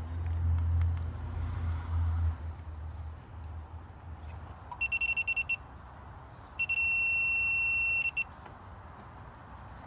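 An electronic beeper sounding about six quick beeps, then one long beep of about a second and a half. A low hum fades out during the first few seconds.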